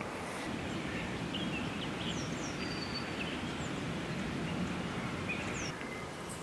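Steady outdoor background noise, a low rumbling hiss that is a little louder through most of the middle, with a few short, high bird chirps over it.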